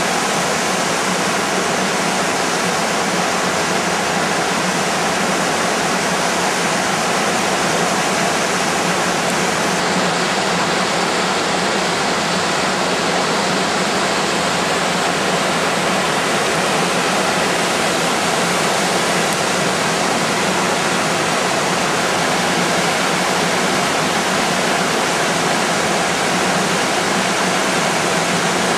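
Small waterfall on the Govdajohka river pouring into a rocky pool, with the river rushing over the stones below it: a loud, steady rush of water, its highest hiss dimming slightly about ten seconds in.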